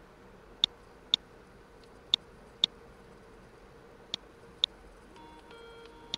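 Computer mouse clicking: sharp clicks in pairs about half a second apart, each pair coming every second and a half or so. A faint beeping tune starts near the end.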